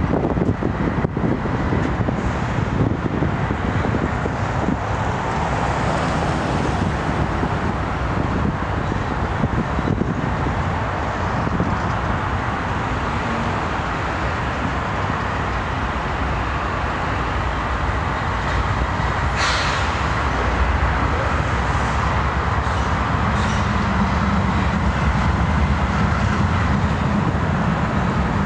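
Intermodal freight train rolling through the yard: a steady rumble and rail noise from the passing container cars, with one short sharp screech about two-thirds through. A low steady hum joins near the end as the Canadian Pacific diesel locomotives draw near.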